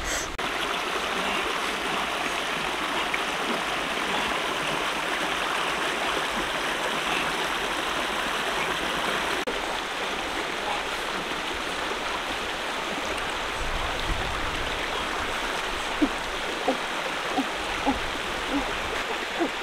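Shallow stream rushing and gurgling steadily over rocks. A few short, sharp clicks come near the end.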